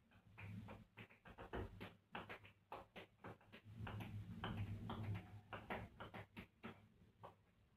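Tap shoes striking a hard floor in quick, uneven rhythms of toe and heel taps, hoofing style. A low hum runs under the taps and is strongest about halfway through.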